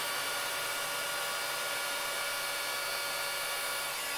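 Hot air gun blowing steadily, a rush of air with a few faint steady whine tones from its fan. It is heating a low-temperature solder sleeve until the solder melts into a wire splice.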